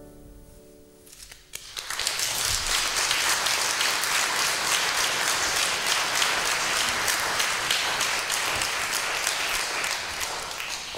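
The last held note of the music dies away, then a concert audience applauds: dense clapping that starts about a second and a half in and tapers off near the end.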